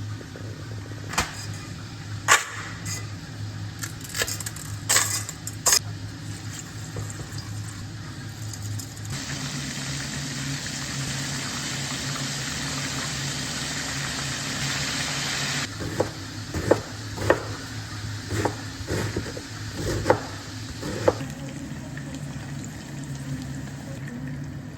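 Kitchen work sounds: utensils and dishes knocking and clicking over a steady low hum, with a tap running for about six or seven seconds in the middle, starting and stopping suddenly.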